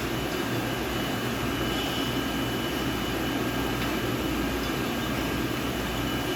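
Steady drone of automated jam-production machinery, running evenly with a low hum and a faint high whine.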